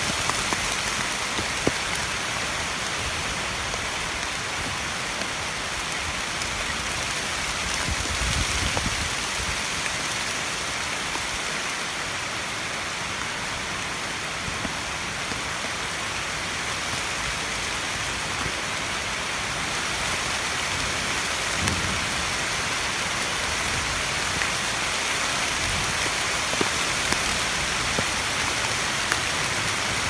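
Steady rain falling on tree foliage, with a brief low rumble about eight seconds in.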